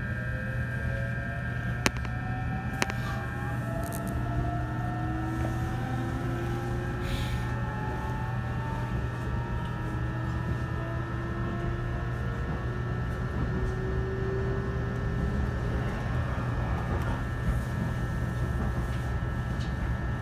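JR East E129 series electric train heard from inside the car: the traction motors' whine rises in pitch as the train accelerates, then levels off, over a steady running rumble and a faint steady high hum. Two sharp clicks come about two and three seconds in.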